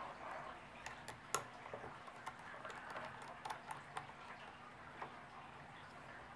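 Faint, irregular small clicks and ticks of a plastic phone mount being handled and its base-plate screw worked on a drone controller, the loudest click about a second and a half in.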